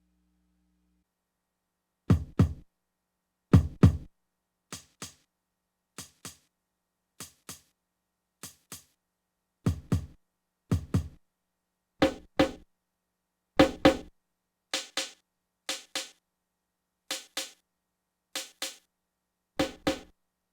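Sampled drum hits played from a drum sampler with its output taken through a TRS cable. After about two seconds of silence, a sparse beat of paired hits starts; some pairs carry a heavy low kick and are louder than the others.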